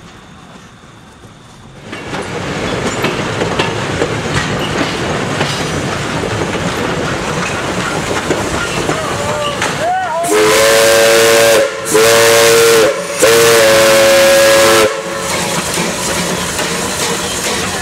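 Lehigh Valley Coal Company #126, a small saddle-tank steam locomotive, rolling past with steam hiss and wheel clatter on the rails. About ten seconds in its whistle sounds three blasts, each a chord of several notes, the last the longest; the whistle is the loudest thing here.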